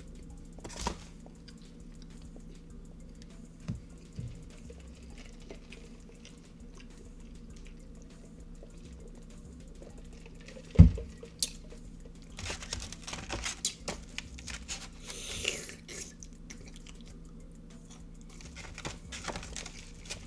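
Close-up eating sounds: quiet chewing of a soft bread roll, with a single heavy thump near the middle as a drink cup is set down on the table. After it comes a stretch of crinkling paper wrappers and rustling as fingers dig into a foam takeout box of chicken.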